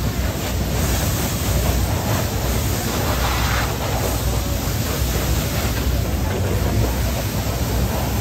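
Pressure washer jet spraying a dirt bike: a steady hiss of water striking the bike, over a constant low rumble.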